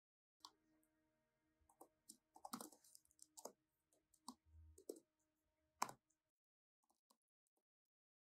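Faint computer keyboard typing: irregular key clicks for about five seconds, the sharpest near the end, then the typing stops.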